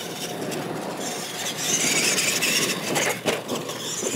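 Radio-controlled scale monster trucks driving on a dirt track: electric motors and gears whining with tyre noise, louder from about one and a half seconds in, and a sharp knock about three seconds in.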